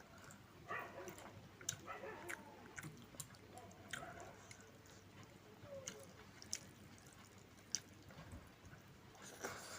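A person eating a meal of rice and curry, with quiet chewing and scattered small mouth clicks and smacks.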